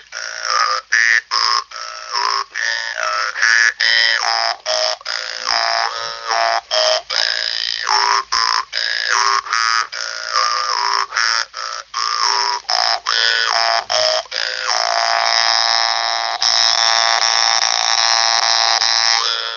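Hmong ncas, a brass-reed jaw harp, played solo: a buzzing tone whose melody moves in short phrases broken by brief stops, settling into one long held note for the last few seconds.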